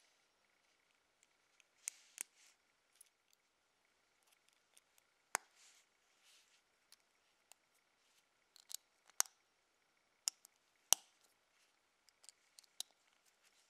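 Plastic LEGO bricks and plates clicking and snapping as they are handled and pressed together, irregular sharp clicks with a few louder snaps spread through, and soft rustles of fingers on the pieces between them.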